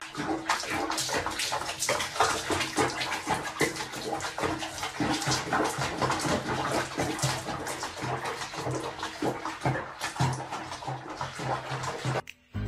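Water splashing and sloshing in a small plastic tub as a cat moves about in it, with many quick little splashes; it stops suddenly near the end.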